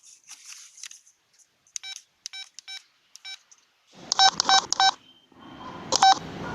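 LG CU500 cell phone's keypad beeping as its buttons are pressed: short, identical beeps, first spaced apart, then a quick run of four.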